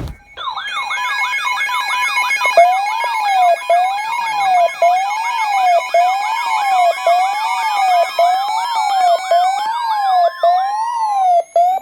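Several electronic sirens sounding at once over a radio broadcast: yelping tones that sweep up and down about once a second, faster warbling tones above them, and a wail that slowly climbs in pitch through the second half, all cutting off just before the end.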